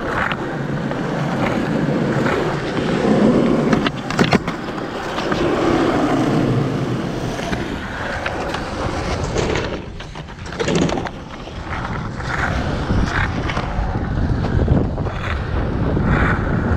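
Skateboard wheels rolling over a smooth skatepark surface, a steady rumbling roll with a few sharp clacks of the board around four seconds in and again near the eleven-second mark.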